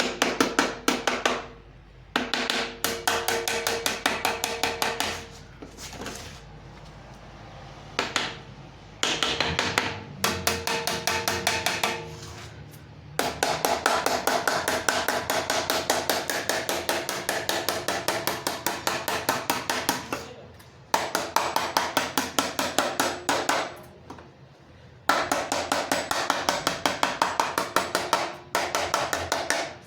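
Hammer tapping rapidly on metal, in runs of several seconds broken by short pauses, the metal ringing under the blows.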